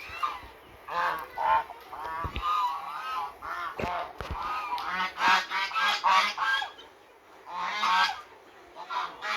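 Domestic waterfowl calling: many short, repeated calls in quick succession, some overlapping, with a short lull about seven seconds in.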